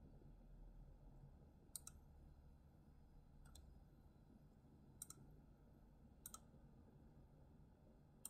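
Faint computer mouse clicks, four of them spread a second or more apart, several heard as a quick press-and-release pair, over a low steady room hum.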